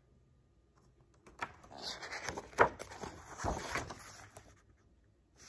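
Pages of a picture book being turned and handled: paper rustling with a few sharp crackles, starting about a second and a half in and dying away near the end.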